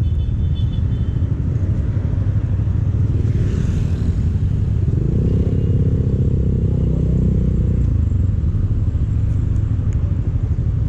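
Motorcycle engine running on the move, under a heavy low rumble. A clearer engine tone stands out for a few seconds midway.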